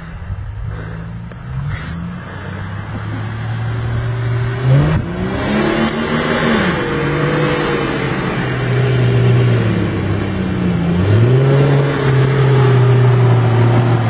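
Jeep Cherokee XJ engine running as it crawls over rocks, growing louder as it approaches. It revs up twice, about five and eleven seconds in, and each time falls back to a steady note.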